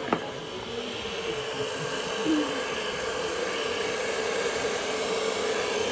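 Hand-held hair dryer running steadily, blowing air over a wet watercolour painting to dry the paint, with a steady hum in the rush of air. A short sharp knock just after the start.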